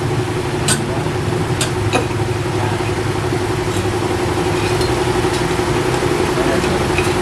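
A steady motor drone with a held hum and fast low pulsing, and a few light clicks over it.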